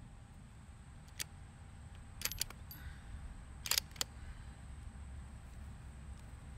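Bolt of a Mossberg MVP LC rifle being worked by hand, a run of sharp metallic clicks in two quick groups about a second and a half apart, as the bolt is opened and drawn back, then pushed forward and locked.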